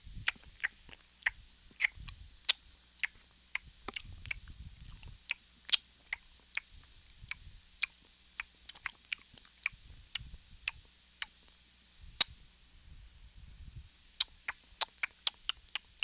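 A person making chewing sounds to imitate a deer eating, as Foley: a run of sharp, irregular clicks and crunches, two or three a second. The clicks break off about eleven seconds in, one lone click follows, then a quicker flurry comes near the end.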